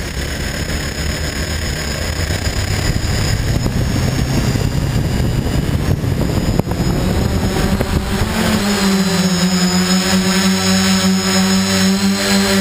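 Electric motors of a radio-controlled model aircraft whining steadily over wind buffeting the microphone. About eight seconds in, a louder, steadier hum with several overtones sets in.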